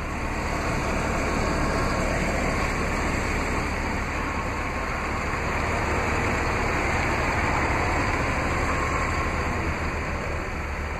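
Hummer H2's 6.0-litre Vortec V8 idling through its Flowmaster exhaust: a steady low rumble with a hiss over it, swelling a little twice.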